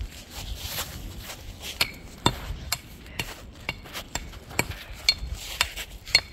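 A long wooden branch being whacked against wood, giving a run of sharp knocks about two a second, some with a short ringing tone.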